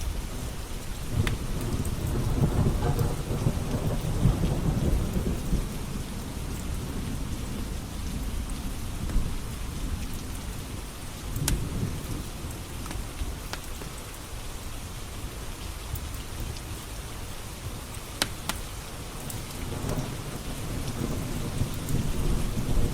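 Steady rain with thunder rumbling twice, a few seconds in and again near the end, and a few sharp pops from a crackling wood fire.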